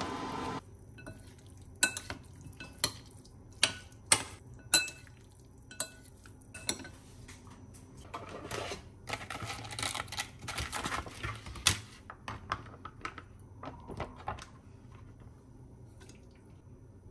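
Wooden chopsticks clicking sharply against a glass mixing bowl while stirring food, then a metal spoon scraping and stirring in the bowl, with more taps, before it goes quiet.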